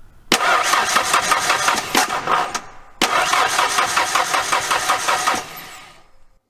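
1991 Ford Ranger 2.3-litre four-cylinder engine cranking on the starter in two bursts of about two and a half seconds each, with an even rhythmic chug, never catching. It has no spark, which the mechanic takes for a shorted DIS ignition module.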